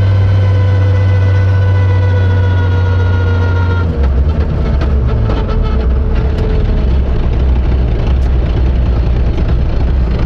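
Suzuki Ignis S1600 rally car's engine heard from inside the cockpit, running at a steady note in sixth gear with its pitch slowly sagging. About four seconds in, the note drops away to a rough, uneven low rumble with scattered ticks and knocks as the car is taken out of gear and slows.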